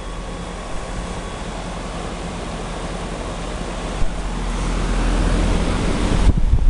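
Outdoor heat pump unit running in heat mode: a steady compressor hum under the fan's rushing air. A few low thumps come near the end.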